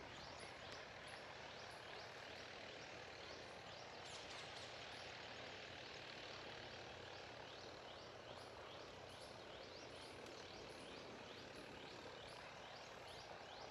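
Faint outdoor nature ambience: an animal calls in a steady series of short rising chirps, about three a second, with a fainter, very high-pitched pulse repeating alongside, over a low hiss.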